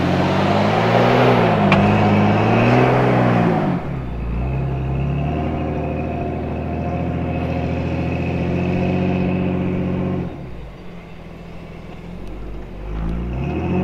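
Jeep Cherokee XJ recovery rig's engine revving hard under load as it tows a stuck Jeep out of deep sand on a strap, its pitch rising and falling with a rush of noise. About four seconds in it settles to a steadier pull. It eases off after about ten seconds and picks up again near the end.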